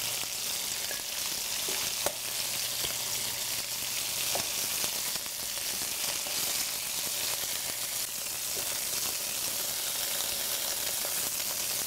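Prawns, bacon and asparagus sizzling steadily in a hot frying pan, with a few faint clicks of metal tongs as the cooked prawn-and-bacon bites are lifted out.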